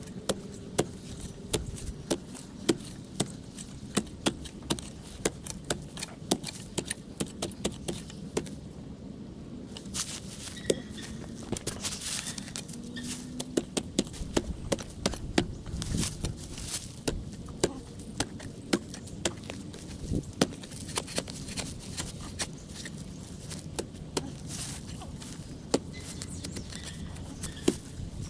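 Hand tools working soil and mulch in a garden bed: irregular sharp knocks and scrapes, about two a second.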